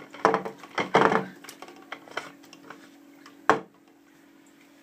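Hands handling and fastening the clear plastic filter housings of a reverse osmosis unit: a string of plastic clicks and knocks, the sharpest about three and a half seconds in, over a faint steady hum.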